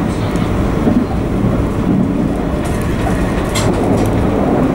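Passenger train carriage running at speed, heard from inside: a loud, steady rumble of the wheels on the track, with one brief sharp click about three and a half seconds in.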